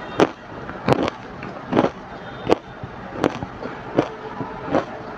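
Hard ice coated in matcha powder being chewed, with loud, sharp crunches coming about once every three-quarters of a second as the ice cracks between the teeth.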